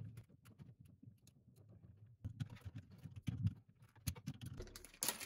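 Faint clicks and light knocks of metal plumbing fittings as a braided faucet supply line is screwed back onto a chrome feed water adapter and tightened with an adjustable wrench, with a cluster of louder knocks about two to three and a half seconds in.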